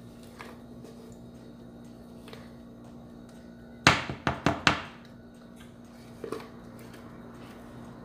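A spatula knocked against a mixing bowl four times in quick succession, about four seconds in, to shake off cake batter, with a couple of softer knocks a little later. A low steady hum runs underneath.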